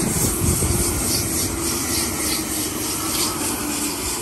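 Brisbane electric suburban train running on the rails, with a steady hum and a rhythmic hiss repeating about three times a second.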